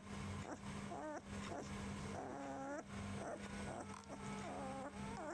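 Rough collie puppies, about three weeks old, whimpering and squeaking in a run of short, wavering calls, some sliding sharply up in pitch, over a steady low hum.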